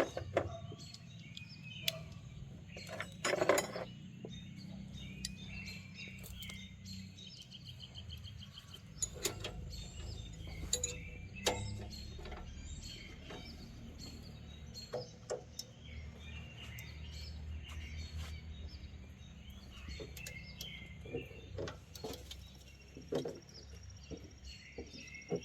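Scattered metallic clicks and clinks of a 14 mm wrench working a bolt and nut while a garage door latch is fastened, over a steady low hum, with birds chirping in the background.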